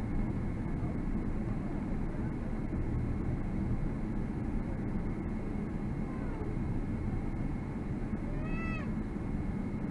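Steady low rumble in an airliner cabin as the jet taxis on the ground, engines at low power. Near the end, a brief high-pitched cry rises and falls twice above the rumble.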